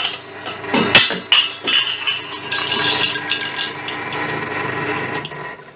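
Metal work on a stainless steel pot lid: sharp metallic knocks and clinks, the loudest about a second in, over a steady running tone that stops shortly before the end.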